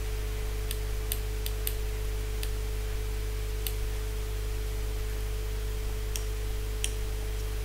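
Scattered single computer-mouse clicks, about eight over several seconds at irregular intervals, over a steady low hum and faint hiss.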